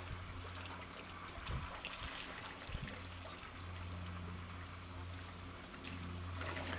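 African elephants drinking at a waterhole: water splashing and trickling as their trunks draw and drip water, with a few brief splashes a second and a half to three seconds in and again near the end. A low steady hum runs underneath.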